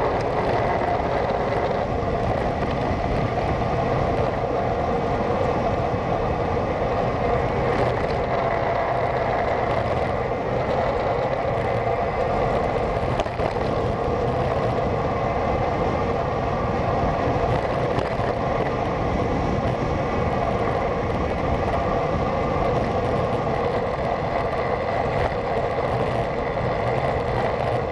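Steady rush of wind and road noise on a bicycle-mounted camera as the bike rolls along at speed, with a faint steady whistle above it.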